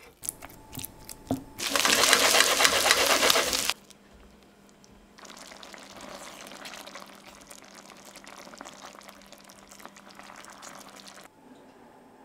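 Cooking sounds: a few light knife taps on a wooden chopping board, then a loud hissing for about two seconds, then a quieter steady simmer as a spatula stirs thick coconut-milk beef curry in a stainless steel pan, which stops near the end.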